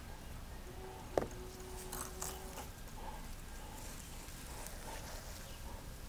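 Hands working coarse, gritty bonsai substrate of pumice and crushed granite around a tree's roots, making faint crunching and scraping, with a sharp click about a second in.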